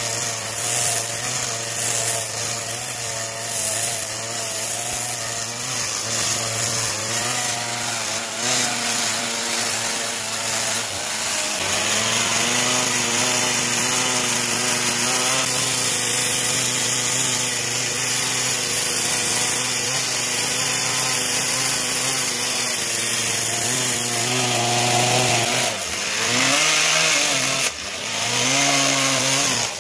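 Stihl chainsaw running under load as it carves into a wooden log, its engine note holding steady. Near the end the pitch falls and rises again several times as the throttle is let off and opened.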